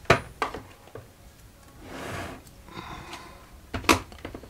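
Clicks and knocks of parts and leads being handled on a workbench: a sharp knock right at the start and another half a second later, a short rustling swell about two seconds in, and a cluster of knocks near the end.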